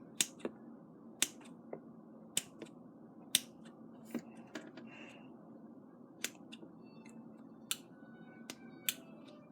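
Small scissors snipping a foam squishy toy: about a dozen sharp, short snips at an uneven pace.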